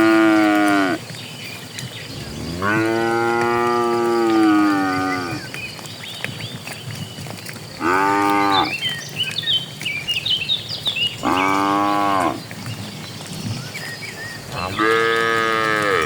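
Cattle mooing repeatedly: five calls, some long and some short, the first already sounding as it begins and the last still going at the end. Birds chirp in the gaps between the moos.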